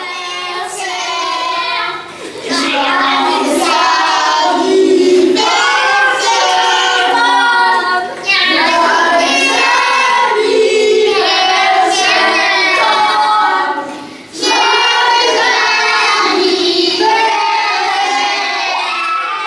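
A group of children singing together in four phrases, with brief breaks between them.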